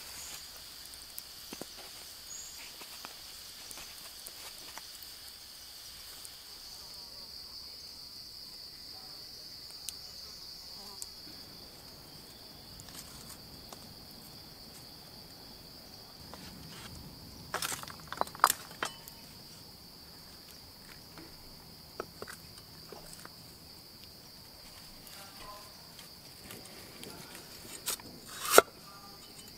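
Steady high-pitched insect trilling, like crickets, with a few sharp knocks; the loudest comes near the end as a cleaver chops through a root on a wooden chopping block.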